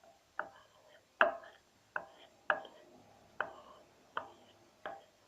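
A hard utensil knocking against a dish seven times, about one knock every three-quarters of a second, each with a brief ring, as the slime mixture is worked.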